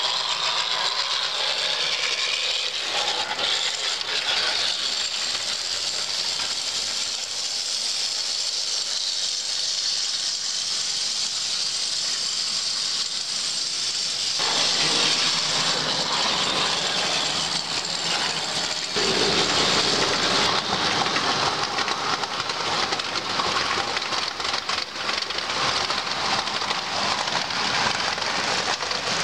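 O scale two-rail model trains running on the layout track: a steady rushing rattle of wheels on rail, which grows fuller and deeper about halfway through and again a few seconds later.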